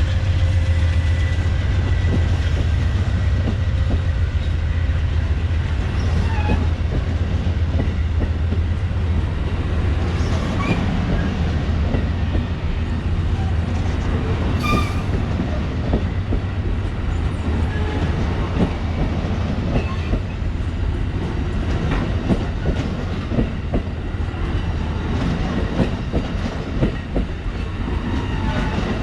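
Amtrak Southwest Chief passenger train rolling past: a deep, steady rumble, with the wheels clicking rhythmically over the rail joints as the cars go by.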